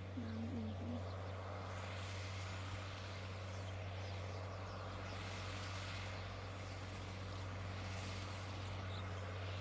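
Tractor engine running steadily under load while ploughing the field, a continuous low drone heard from a distance.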